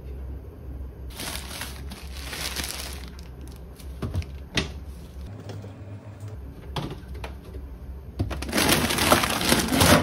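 Food containers and plastic packaging being taken out of a side-by-side refrigerator: rustling and crinkling of plastic, with a few sharp clicks of containers knocking on the shelves, and louder crinkling of a plastic bag being pulled out of the freezer in the last second and a half.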